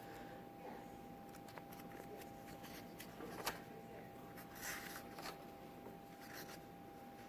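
Pages of a bound zoning book being handled and turned: scattered soft paper rustles and light clicks, over a faint steady hum.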